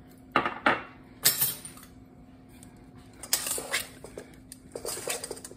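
A utensil clattering and scraping against a mixing bowl in four short bouts as sliced vegetables are tossed with oil and fajita seasoning.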